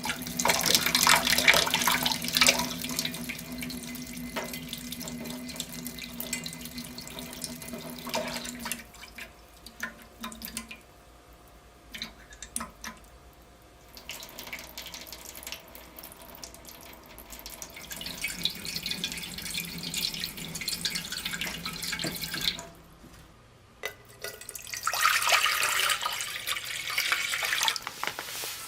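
Kitchen tap running, water splashing into a container, in three spells: for the first several seconds, again from about halfway until a few seconds before the end, and once more near the end, with light knocks and clinks in between.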